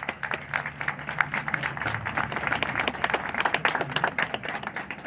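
Crowd applauding with many hands clapping, which fades out near the end.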